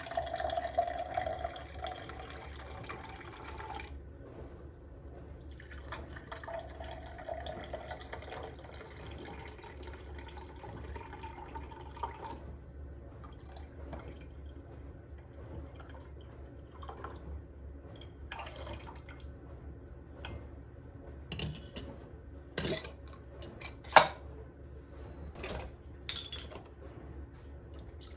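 Water running or pouring in two stretches, then a few scattered sharp clicks and knocks, one much louder than the rest near the end, over a steady low hum.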